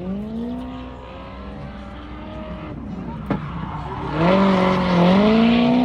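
An aircraft engine drone with a clear pitch that glides up and settles, then dips and rises again, growing much louder about four seconds in.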